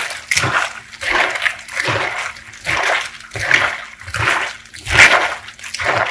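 Gloved hands mixing cabbage kimchi in a stainless steel bowl: wet squelching and sloshing as the cabbage pieces are squeezed and tossed in the blended beet-and-vegetable paste, in repeated strokes a little more than one a second.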